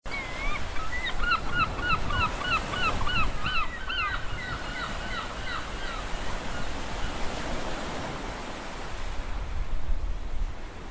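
A bird calls in a quick series of short, repeated calls, about three a second, for around five seconds. Behind it is a steady rush of surf and wind.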